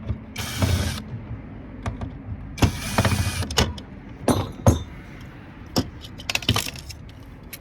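Metal parts and hand tools clinking and knocking as a circuit board is taken apart, with two short scraping rattles, about half a second in and again around three seconds in.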